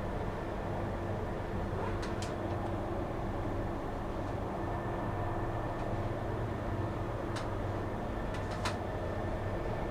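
Steady mechanical hum of running machinery, with a few light clicks or taps: one pair about two seconds in and two more near the end.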